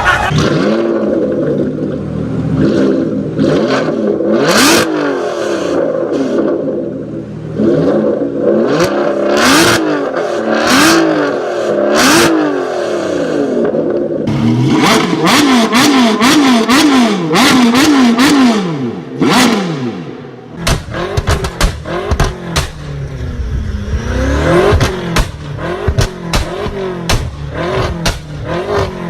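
Turbocharged car engine revved in repeated blips, with sharp bangs and pops from the exhaust: anti-lag backfires. The blips come quickly around the middle, and about two-thirds of the way through the sound changes to a run of rapid crackling pops.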